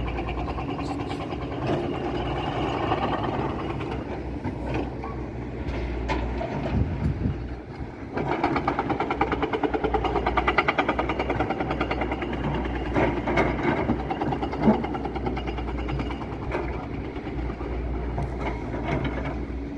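Volvo excavator's diesel engine running while the machine works, growing louder and more rapidly pulsing about eight seconds in as it takes on load, with one sharp knock a little later.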